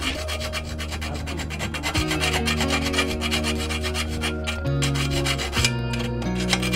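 Background music with held bass notes that change every second or so and a fast, even tick of percussion, over a hand file rubbing and rasping against a bare steel frame tube.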